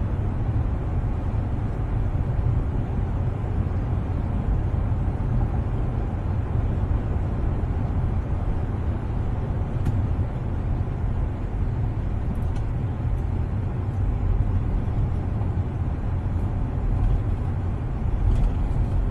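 Steady low road and engine rumble of a moving SUV, heard from inside the cabin, with a couple of faint clicks partway through.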